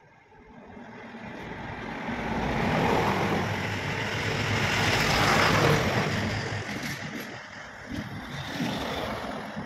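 A motor vehicle passing by on the road, its engine and tyre noise swelling up to a peak about halfway through and then fading away.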